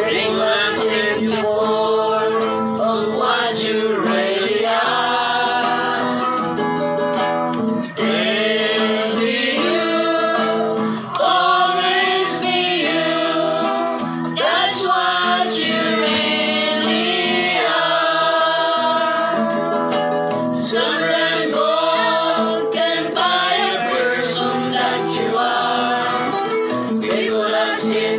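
A group of voices singing together, with instrumental accompaniment.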